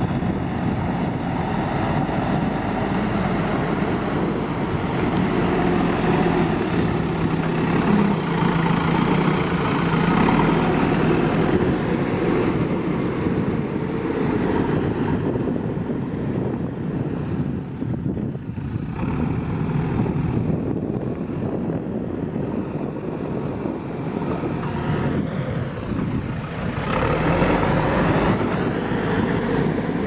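JCB 3DX backhoe loader's diesel engine running under load as the front bucket pushes and levels loose soil, its sound swelling and easing with the work and growing louder again near the end.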